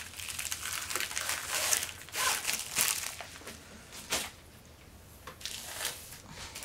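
Plastic mailer packaging crinkling and rustling as it is handled, in irregular bursts, with a quieter stretch a little past the middle.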